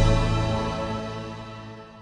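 Intro theme music ending on a held chord that fades away.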